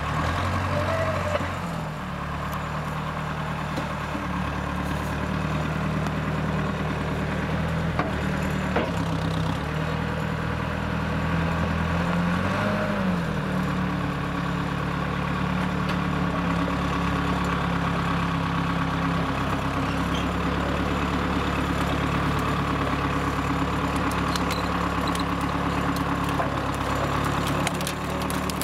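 1970 Case 350 crawler loader's engine running steadily as the machine moves a felled pine tree with its bucket, the engine note stepping up and down, with a brief rise and fall about halfway through.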